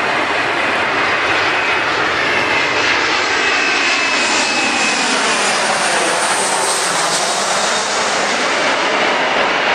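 Boeing 737-400 airliner's CFM56-3 turbofan engines passing low on landing, a loud steady jet noise with a high whine. The sweeping sound is at its closest about six seconds in.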